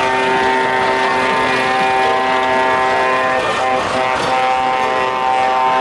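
Truck air horns held in a long, steady multi-tone chord.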